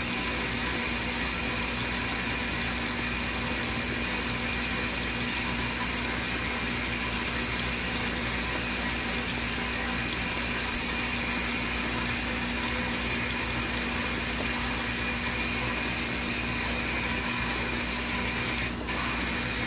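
Hot water pouring steadily into the tub of a portable RV washing machine as it fills toward its high water level, with a steady hum underneath.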